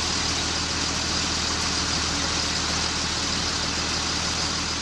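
Several motor-vehicle engines running together as a sound effect: a steady low hum under an even rushing noise, holding level throughout.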